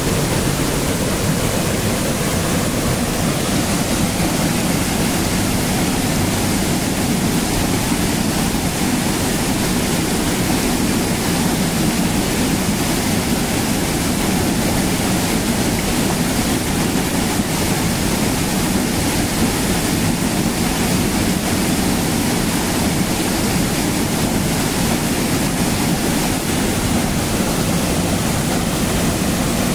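Small waterfall, a heavy flow of water pouring over a rock ledge and crashing into a foaming pool. The rush is loud and steady throughout.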